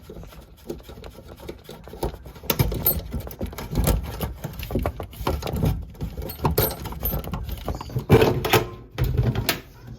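Irregular clicks, knocks and rattles of hand tools and metal faucet parts being handled during a kitchen faucet replacement, growing busier from about two seconds in.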